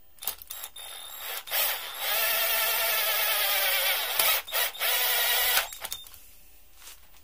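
Cordless drill-driver driving a screw into a 3D-printed lever arm: a few short trigger bursts, then a steady run with a whine of several seconds that stops about six seconds in.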